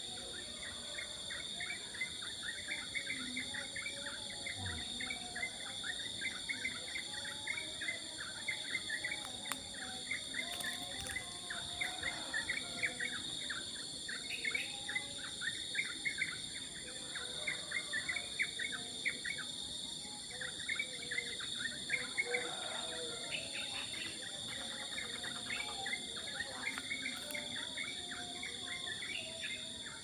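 Morning bird chorus: many small birds chattering in quick, overlapping chirps, over a steady high-pitched trilling of insects.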